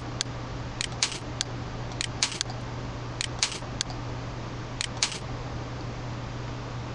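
Computer mouse button clicking about a dozen times in small quick groups, pressed and released while dragging a panorama view, stopping about five seconds in; a steady low hum underneath.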